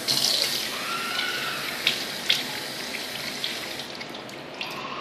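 Water running from a bathroom sink tap over a hand being rinsed. It starts suddenly and is loudest in the first second, with a couple of sharp splashes about two seconds in.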